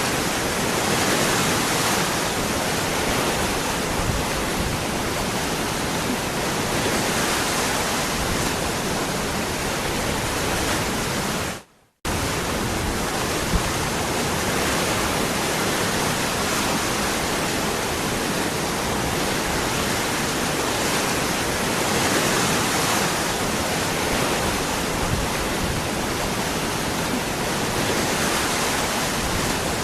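Waterfall: a steady, even rush of falling water, which cuts out for a moment about twelve seconds in and then resumes unchanged.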